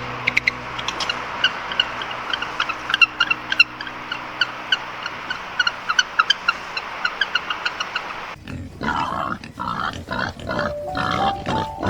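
An animal calling: a long run of short, high squeaks or chirps, several a second, then from about eight seconds in a series of rough grunts. Piano music comes in near the end.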